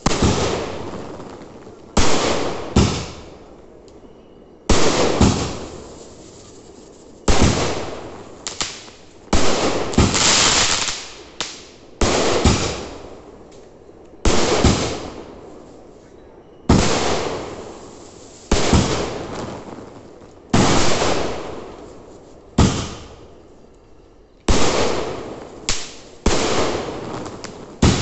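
Aerial fireworks bursting overhead: a sharp bang about every two seconds, often two in quick succession, each trailing off in a fading crackle.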